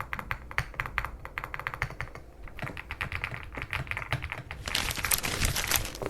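Fast typing on a Dark Alien K75 Pro mechanical keyboard, a quick run of key clicks, thickening into a denser flurry about five seconds in.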